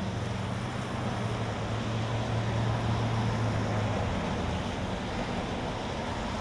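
Cars driving past on a rain-soaked road: tyres hissing on wet pavement over steady rain, with a low engine hum that swells and fades out about four seconds in.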